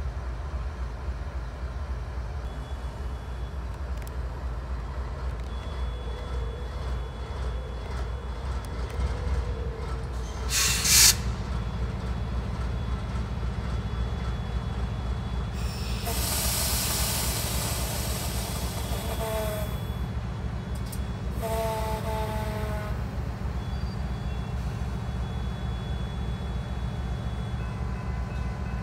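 Norfolk Southern diesel locomotive running, its low engine rumble growing stronger about a third of the way in as the throttle comes up. A short, sharp blast of air about a third in is the loudest sound, followed by a few seconds of air hissing. Then come two short horn soundings a couple of seconds apart.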